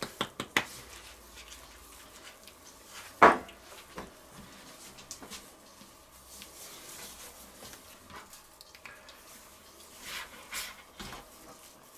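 A spice shaker shaken over a raw duck in a few quick rattling strokes, about five a second, stopping about half a second in. About three seconds in comes one sharp knock, the loudest sound, followed by faint rubbing and handling as seasoning is worked into the duck skin.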